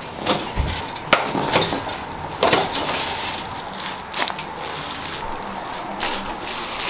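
Joints cracking during chiropractic adjustments: a handful of sharp, separate pops and cracks spread out, with a low thump about half a second in and a short crackling cluster about two and a half seconds in.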